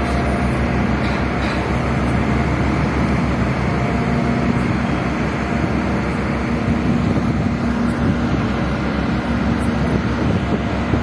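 Mobile cranes' diesel engines running steadily while holding a suspended load: a loud, even low drone, with a held higher tone joining about four seconds in.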